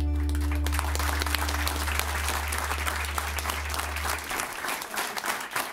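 Audience applauding, breaking out as the song's final chord ends. A low double-bass note rings under the clapping and fades out about four seconds in.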